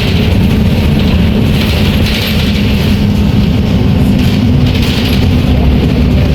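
Volvo B340M bus's diesel engine running loud and steady, a dense low rumble with rattle and hiss over it. The engine note shifts slightly around the middle.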